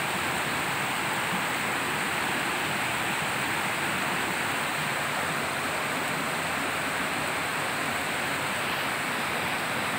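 Heavy downpour: a steady, even hiss of rain that holds at one level throughout.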